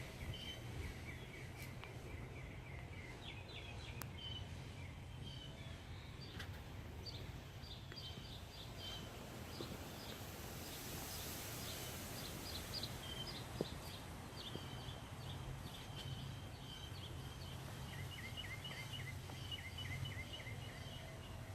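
Small birds chirping in quick repeated series over a steady low background hum.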